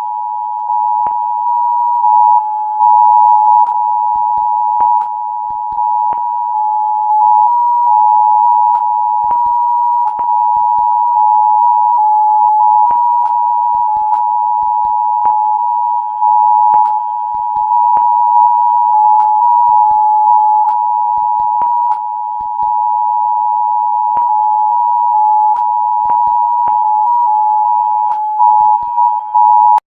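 Emergency Alert System two-tone attention signal: two steady tones sounded together, near 853 Hz and 960 Hz, loud and unbroken, with faint clicks scattered through it.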